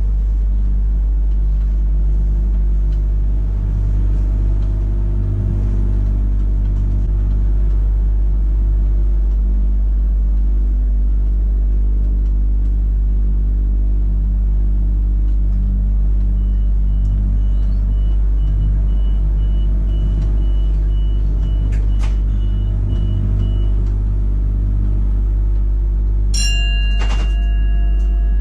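Steady electrical hum of a stationary Millennium electric train's onboard equipment, heard in the driver's cab. Past the middle, a run of short high beeps sounds for several seconds. Near the end, a click is followed by a steady multi-tone sound.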